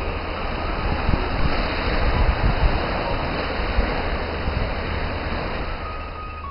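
Wind buffeting the camera microphone in a low, gusty rumble, over the steady wash of small waves breaking on a sandy beach.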